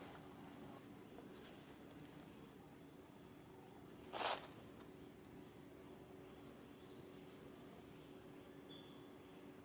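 Steady high-pitched drone of insects such as crickets, with one brief sharp noise about four seconds in.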